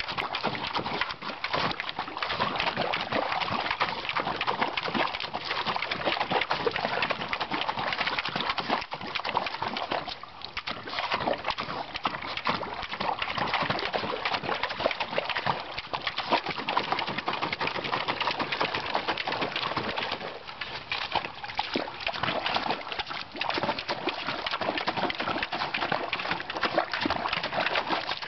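A Parson Russell terrier pawing and thrashing in a galvanized metal washtub of water: continuous rapid splashing and sloshing, with short lulls about ten and twenty seconds in.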